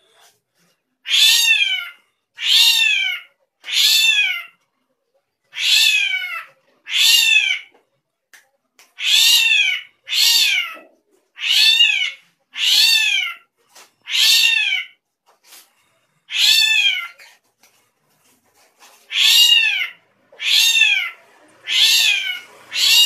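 Drongo (srigunting) giving a long series of cat-like mewing calls, about fourteen, each a short note that arches and slides downward, mostly coming in pairs with a pause of about two seconds past the middle.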